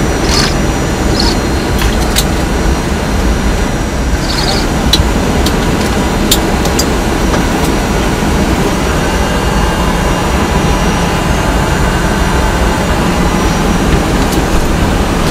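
Steady rumble inside a Boeing 757 cockpit on the ground, with a few light clicks in the first several seconds.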